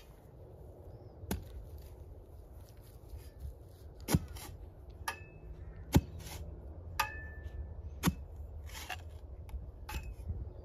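Metal spade chopping into hard, compacted soil: about six sharp strikes a second or two apart, some with a brief metallic ring.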